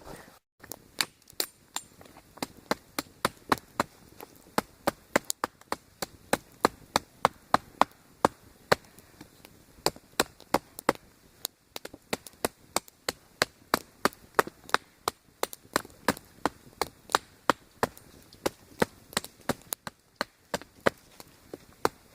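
Tomahawk chopping into wood: sharp, quick strikes at about two to three a second, with a brief pause about halfway through.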